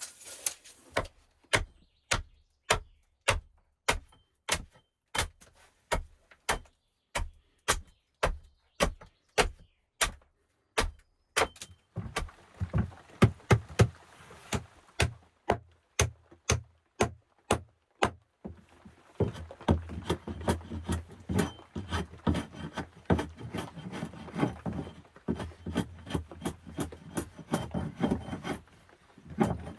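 A steady ticking beat, about two clicks a second, runs throughout. About twelve seconds in, a hand begins rubbing across rough sawn wooden planks. About two-thirds of the way in, this gives way to a denser scraping as a hatchet blade is worked over the boards.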